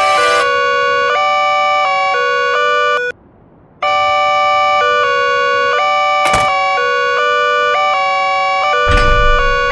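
Simple synthesized electronic tune of held notes changing about twice a second. It breaks off about three seconds in and starts again under a second later, with a short click near the middle and a brief noisy burst near the end.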